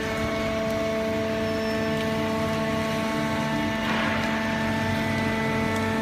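Conveyor-fed horizontal hydraulic baler running: its motor and hydraulic pump give a steady hum of several fixed tones, with a short hiss about four seconds in.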